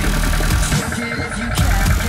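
Electronic dance music soundtrack with a deep bass line.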